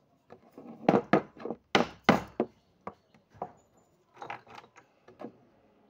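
Irregular knocks and clicks of small metal tools and a plastic 12-gauge shotgun shell being handled and set down on a wooden tabletop during shell reloading, a dozen or so sharp taps with short gaps between them.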